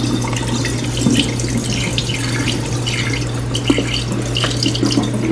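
Kitchen tap running into a pot of rice being rinsed, the water splashing and swirling, with a few small knocks scattered through it and a steady low hum underneath.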